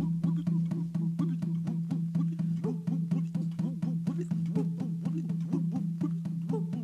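Music: a quick, even percussive beat of about three to four strokes a second, with short pitched notes over a steady low drone.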